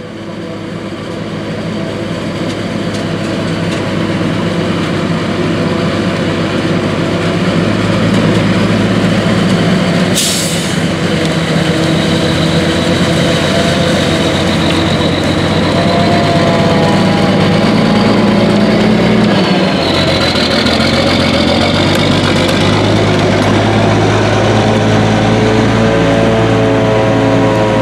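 John Deere 9600i self-propelled forage harvester chopping corn, its engine and cutterhead running steadily under load, mixed with the engine of the semi-truck driving alongside to take the chopped silage. The loud machine noise fades in over the first few seconds, with a short hiss about ten seconds in and the engine pitch shifting in the second half.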